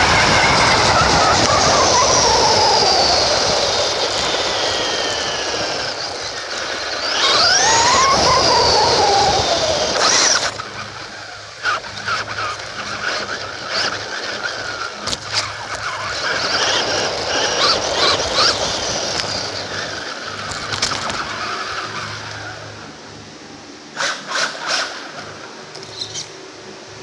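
Traxxas Bandit RC car's brushed electric motor and gears whining as it is driven flat out, heard from a camera mounted on the car, with a loud rush of wind and tyre noise. The whine falls in pitch early on, sweeps up and down again about eight seconds in, then comes in short spurts of throttle and dies down near the end.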